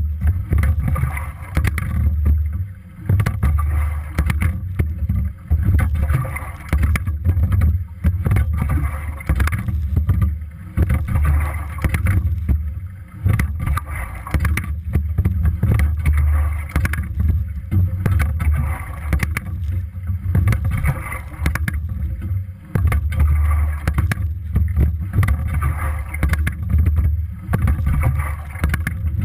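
Water and air rushing past a rigger-mounted camera on a single scull being rowed. The sound swells and fades with each stroke, about every two and a half to three seconds, with frequent small clicks and knocks from the boat's fittings.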